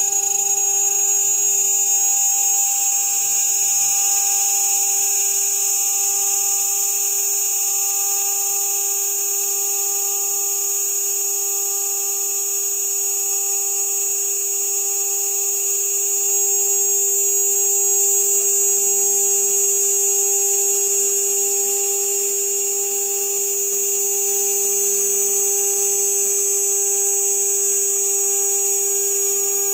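CNC router spindle at 12,000 RPM driving a 3 mm carbide end mill through half-inch polycarbonate. It makes a steady whine with a strong high hiss of cutting, swelling and easing only slightly.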